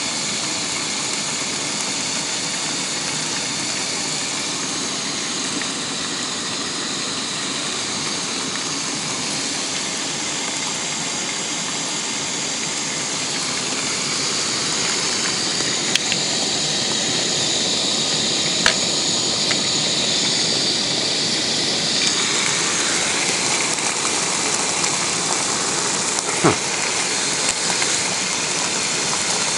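Pork sizzling in two frying pans on a Primus 2069 gas camp stove: a steady hiss, with a few sharp pops of spitting fat.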